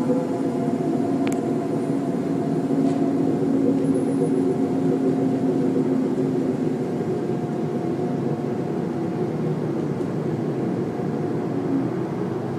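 A steady, low droning hum made of several held tones over a rumbling background, the kind of sound reported as 'sky trumpets'; its source is not identified.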